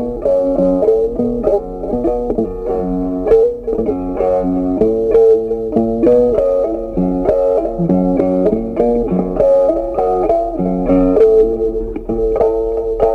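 Background music: a plucked guitar playing a melody of quick, evenly paced notes.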